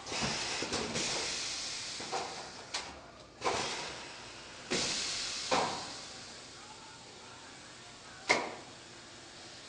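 Lawson Trooper automatic carousel screen printing press cycling on compressed air: several bursts of air hiss, each fading over about a second, and sharp mechanical clacks, the loudest near the end.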